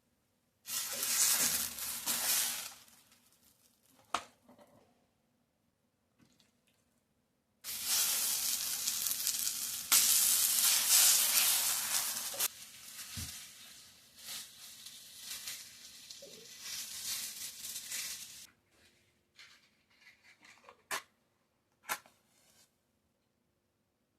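Potato pancake batter sizzling in a hot frying pan, in two bursts that each start suddenly: a short one, then a longer one that holds for several seconds and dies down. A few sharp clicks come near the end.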